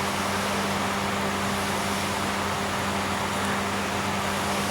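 Steady machine hum over an even rushing noise, holding constant, like an engine or motor running.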